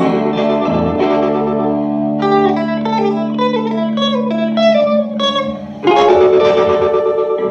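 Semi-hollow electric guitar played through an amplifier: held low notes, then a run of quick picked single notes, a brief drop, and a loud strummed chord about six seconds in.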